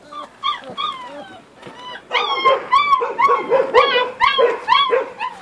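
A puppy yelping. It gives a few faint whines in the first second or so, then a rapid run of short, falling, high-pitched yelps, about three a second, through the last three seconds.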